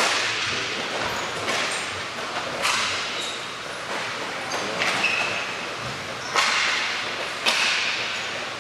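Hockey sticks and puck clacking during play, several sharp cracks ringing out and trailing off in the large hall's echo, with skates scraping on the rink surface between them.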